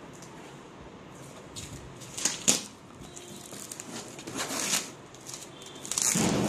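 Plastic wrapping and a cardboard shipping box being handled and pulled open, crinkling and rustling in a few short bursts. The loudest comes about two and a half seconds in, and a heavier rustle comes near the end.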